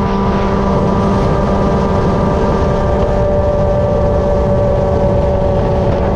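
Kawasaki ZX-6R 636 inline-four engine in a Honda TRX450R ATV, running loudly and steadily at a held pitch.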